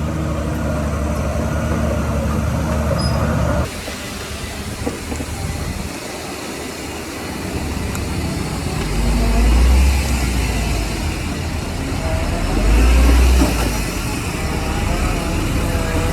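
Heavy diesel earthmoving machinery running: a steady engine drone that changes abruptly a few seconds in, then the low rumble surges twice, as an engine takes load or revs, with a faint high wavering squeal near the end.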